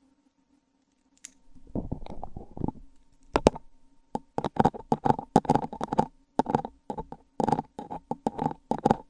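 Handling noise on an external microphone during a mic test: a run of irregular taps and rubs, with a low rumbling stretch near the start followed by many sharp knocks, some of them clustered close together.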